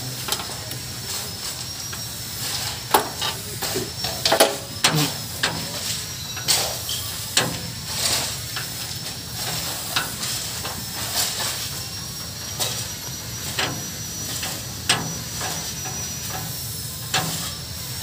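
Irregular metallic clicks, knocks and scrapes of a chain filter wrench and hands working a spin-on filter on a backhoe engine, loudest about three to five seconds in, over a steady low hum and a faint high whine.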